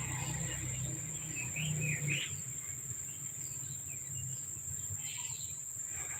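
Steady high-pitched trill of insects, with a few short bird chirps about two seconds in and again near the end.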